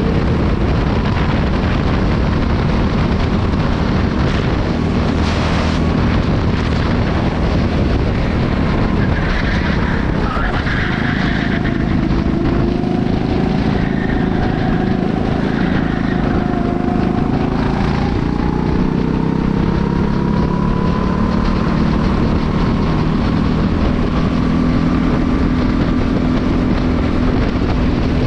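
Onboard sound of a Honda-powered racing kart's engine running on track, its pitch slowly rising and falling with speed, under steady wind noise on the microphone.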